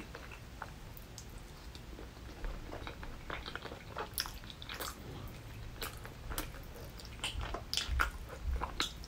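Close-miked eating of saucy tteokbokki with potato: biting and chewing with short, wet mouth clicks and smacks, more frequent from about four seconds in.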